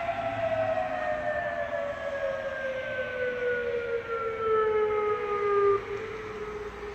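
Outdoor tornado warning siren winding down, its tone falling steadily in pitch as the rotor slows at the end of its activation. The loud tone drops away about six seconds in, leaving a fainter falling tail.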